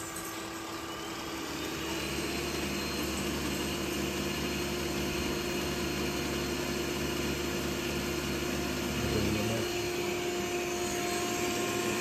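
Ecovacs Deebot robot vacuum-mop running at maximum suction: a steady motor hum and whine that rises in pitch and level over the first two seconds, then holds steady, with the lower hum dropping away about nine seconds in.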